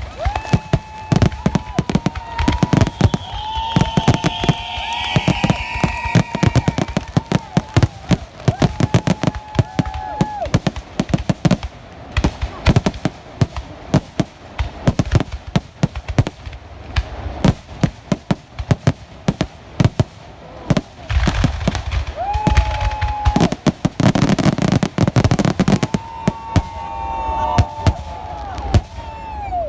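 Fireworks display: a dense run of bangs and crackling, with several whistling fireworks giving held whistles and one high whistle falling in pitch a few seconds in. A cluster of heavier, deeper booms comes a little after the middle.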